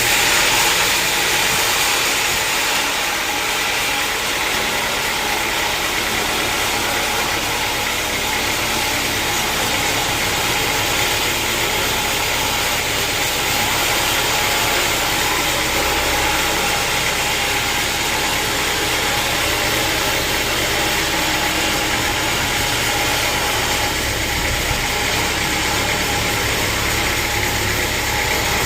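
Sawmill machinery running steadily, a dense even noise with a few steady tones underneath and no pauses, as when a log is being sawn.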